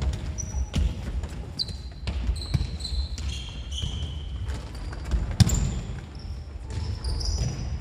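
Futsal ball being kicked and thudding on a wooden gym floor, with several sharp knocks, the loudest about two-thirds of the way through. Sneakers squeak briefly on the floor again and again between the kicks, over a low rumble of running feet in a reverberant hall.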